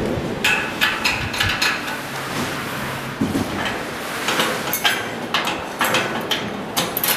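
Irregular light metallic clicks and knocks as steel mounting brackets and the sheet-metal header of a lift landing door are handled and fitted together.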